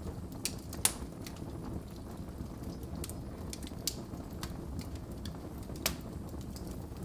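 Wood fire burning in a fireplace: a low steady rumble of flames with irregular sharp crackles and pops, the loudest about a second in and near the end.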